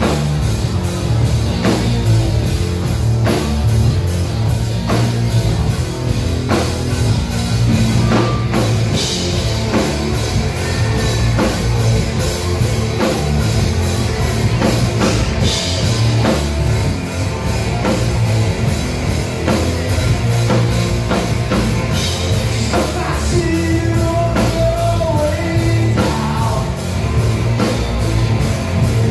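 Rock music with a steady drum beat and heavy, distorted sound, with some singing.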